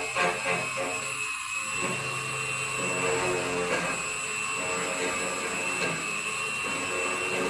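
Key duplicating machine running, its cutter wheel giving a steady high whine as it cuts a key blank.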